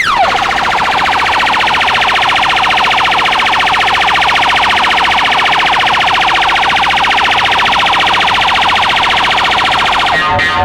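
Electronic siren sound effect from a DJ sound-test track, holding a steady, loud, rapid warble. Near the end it drops away and a beat-driven music track comes in.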